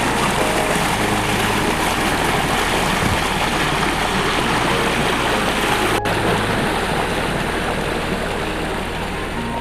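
Rushing water of a waterfall, a loud steady hiss, with background music with low sustained notes underneath.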